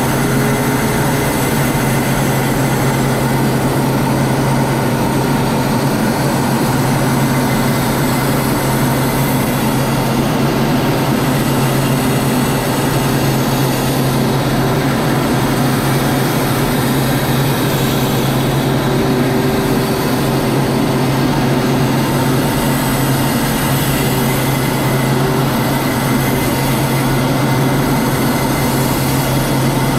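Steady in-flight cockpit noise of the camera aircraft: a constant engine hum mixed with rushing air, unchanging in pitch and level.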